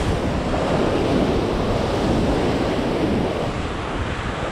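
Sea surf breaking and washing against rocks, a loud steady rush that swells in the middle as a wave surges in.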